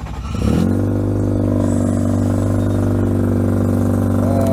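Mazda FD RX-7's twin-turbo 13B rotary engine starting: it cranks, catches about half a second in with a quick rise in pitch, then settles into a steady idle.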